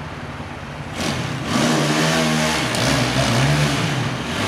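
Motorcycle engine idling, then revved hard about a second in as the bike pulls away. The engine note rises, dips briefly and climbs again.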